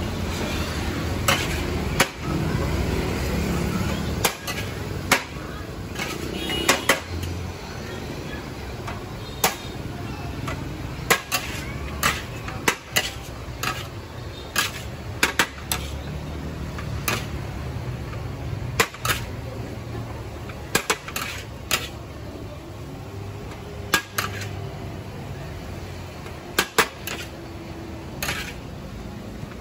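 A metal spatula clanking and scraping against a large steel wok as fried rice is stir-fried and scooped out, in sharp irregular strikes about once a second over a steady low background noise.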